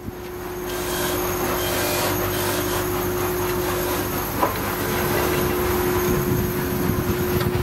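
Electric bench polishing machine running steadily, its motor and buffing wheel giving a constant hum with one held tone, as metal cartouche pieces are buffed to a shine against the wheel. A brief knock about four and a half seconds in.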